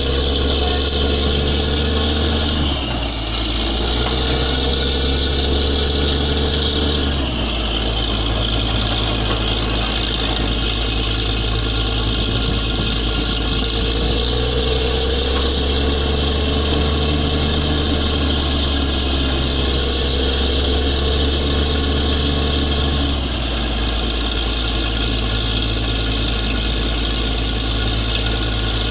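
Borewell drilling rig's engine running steadily under load, its deep drone shifting in pitch a few times.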